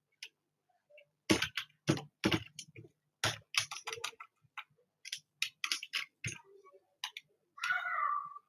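Computer keyboard typing: irregular keystroke clicks, several in quick runs with short gaps between. A brief softer sound comes near the end.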